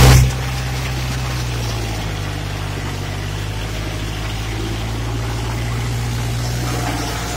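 Kubota MU4501 tractor's four-cylinder diesel engine running steadily at a constant speed, with water and mud churning around the wheels in a wet field. A brief loud rush at the very start.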